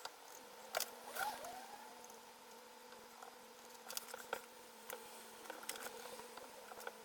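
Small, sharp clicks and taps of hand tools and parts being handled on an opened laptop, with a couple of short squeaks, over a faint steady hum.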